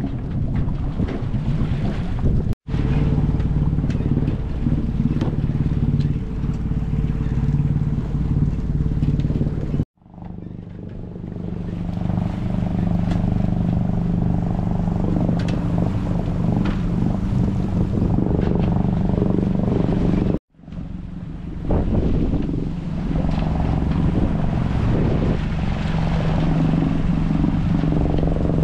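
A sailboat's engine running steadily and smoothly under power, with wind noise over the water. A few seconds in it cuts to the engine from a stretch of wind noise under sail.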